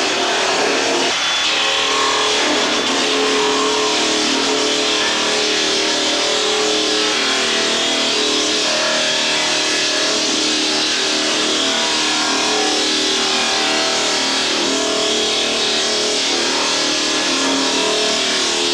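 Handheld router running steadily as it cuts along the edge of a wooden canoe's rail, its motor whine wavering in pitch as the load on the bit changes.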